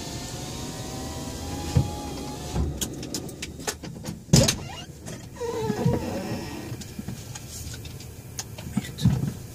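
Scania 114G 340 truck's diesel engine running steadily. About two and a half seconds in the steady sound drops away and a string of clicks and knocks follows, the loudest about four and a half seconds in and a pair more near the end.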